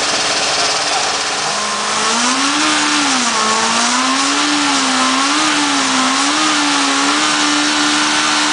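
Formula Student single-seater race car engine revved up and held at high revs for a static noise test. Its pitch rises, wavers up and down as the throttle is adjusted, then holds steady at three-quarters of maximum revs while the sound level is checked against the 120 dB limit.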